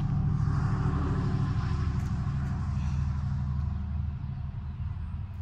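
Steady low engine rumble, easing off a little near the end.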